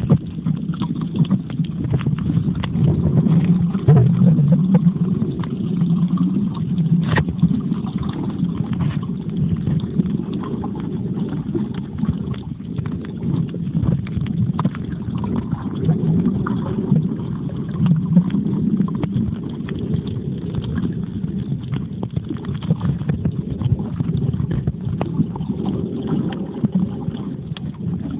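Muffled underwater noise picked up by a phone sealed in a waterproof pouch: a steady low rumble of moving water and the pouch rubbing against the phone, lifting and falling every few seconds, with scattered faint clicks and taps.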